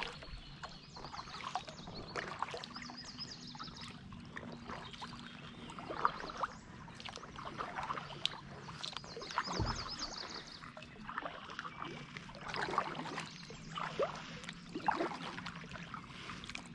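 Water splashing and dripping around a moving kayak, with irregular short splashes from the paddle.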